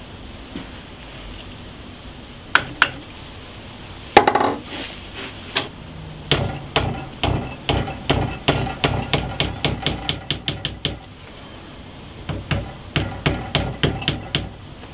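Small metal hammer tapping a pin into a knife's antler handle: a few separate taps, the loudest about four seconds in, then a quick run of light taps, about three a second, and another short run near the end.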